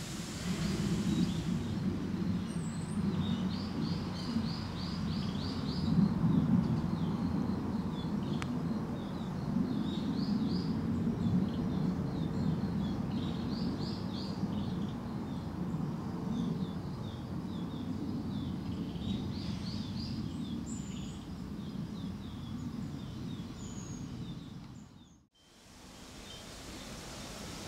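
Wind buffeting the microphone with a low, uneven rumble, while a small bird sings short rapid trills every few seconds. The sound dips out briefly near the end.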